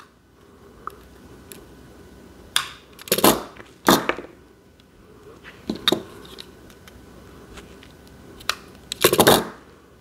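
Scissors snipping beading thread at the end of a seed-bead bracelet: a few sharp snips and clicks about three to four seconds in. Later come scattered light taps and handling clicks as the scissors are laid down and a metal tube clasp is worked against the beads.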